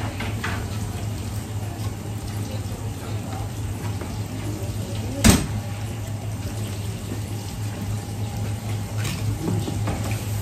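Tap water running steadily into a sink, over a constant low hum, with small clicks and one sharp knock about five seconds in.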